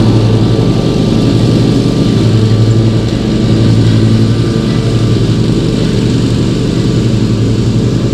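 Zero-turn lawn mower engine running steadily with a strong low hum.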